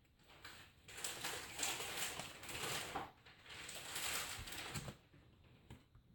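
Cardstock being folded along its score lines and creased down, a dry papery rustling and rubbing in two stretches of about two seconds each, with small taps.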